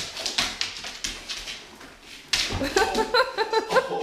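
Dog's claws clicking and scrabbling on a hardwood floor as it jumps about, then, about two seconds in, louder high-pitched excited whining that rises and falls.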